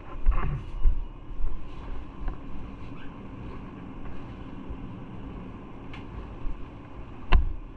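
Motorcycle engine running steadily under wind rumble on the microphone, with a few thumps near the start and a sharp click a little past seven seconds in.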